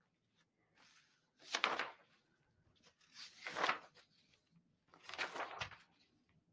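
Three short rustling swishes, each under a second, coming about every second and a half to two seconds.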